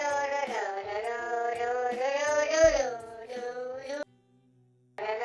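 High-pitched singing voice over light music, with long held notes that glide up and down. It breaks off for about a second near the end, then resumes.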